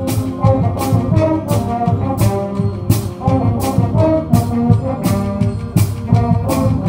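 School pep band playing brass music, trombones and trumpets over a steady beat of drum and cymbal hits.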